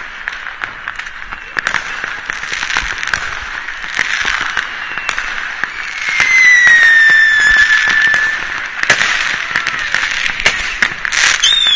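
Many distant fireworks and firecrackers going off across a city, a steady crackle of pops and bangs. About halfway through, a long whistle slides slowly down in pitch.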